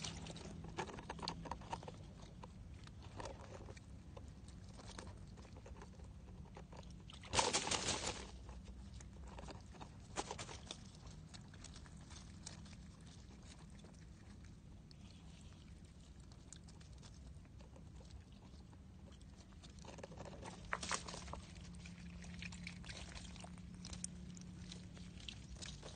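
Hands rummaging in wet mud and dead leaves, with scattered rustles and small knocks. A louder burst of rustling lasting under a second comes about seven seconds in, and a shorter cluster around twenty-one seconds.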